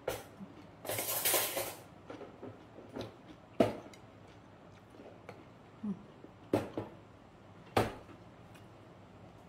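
Tableware and eating sounds: a few sharp clicks and knocks of a plate being handled, with a stretch of crunchy, crackly noise about a second in.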